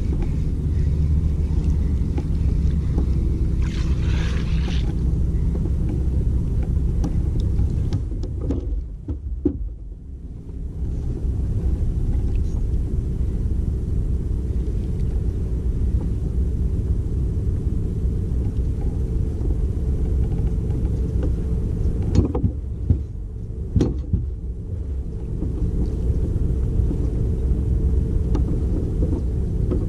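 Steady low rumble and hum of a fishing kayak under way, which drops away twice for a few seconds. A few short knocks sound near the end.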